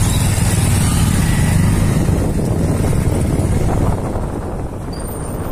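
Motorcycle engines running at low speed, a steady low rumble that eases off a little about four seconds in.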